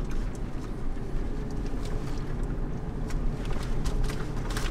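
Toyota 4Runner driving slowly over a rocky dirt trail, heard from inside the cabin: a steady low engine and tyre rumble with a faint steady hum, and a few light rattles near the end.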